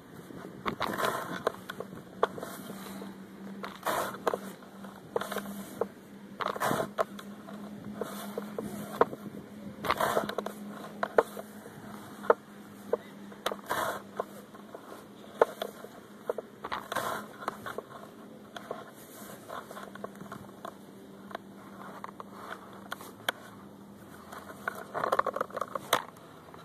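Digging tool cutting into lawn turf and soil, with irregular crunches, scrapes and sharp clicks as a plug is cut and dirt is lifted out. A steady low hum runs underneath.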